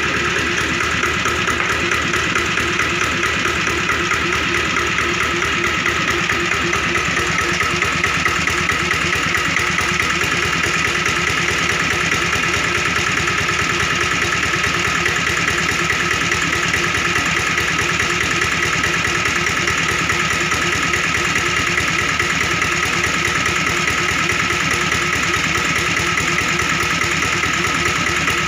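Petrol-engine-driven air compressor running steadily, the engine's rapid, even firing pulses unchanging throughout.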